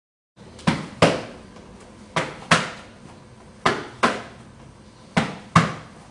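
Gloved hook punches landing on a partner's raised forearms as he covers his head, absorbing the blows on his arms. They come in quick pairs about a third of a second apart, four pairs spaced about a second and a half apart, each hit ringing briefly in the room.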